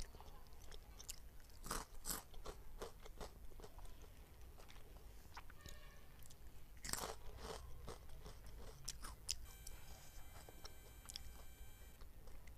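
Close-up eating sounds: crisp crunching and chewing of Kurkure corn-puff sticks, with sharp bites about two seconds in and again about seven seconds in. A faint steady high tone sounds for a couple of seconds near the end.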